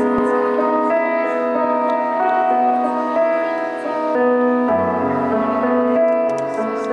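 Live band playing a slow instrumental intro on keyboard and guitars, held chord notes changing every half second or so, with low bass notes coming in about five seconds in.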